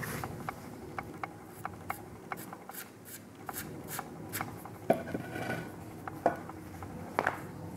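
Light handling noises: a sheet of paper rubbing and rustling, with scattered small clicks and taps and three sharper knocks in the second half as the magnet under it is handled.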